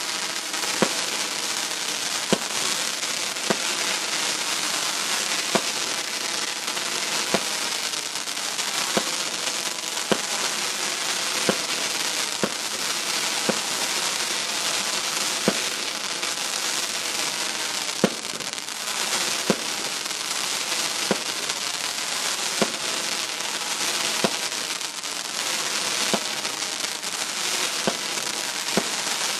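Thrillseeker firework by Fireworks For All going off: a dense, continuous crackling with sharp bangs roughly once a second.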